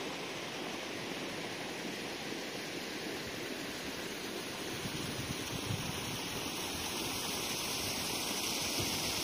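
Steady rushing outdoor noise with no distinct events, growing slightly louder near the end.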